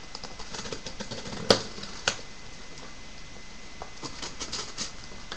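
A sealed cardboard case of trading-card boxes being opened by hand: scattered clicks and taps, a sharp snap about a second and a half in and another just after two seconds, then a quick run of clicks near the end.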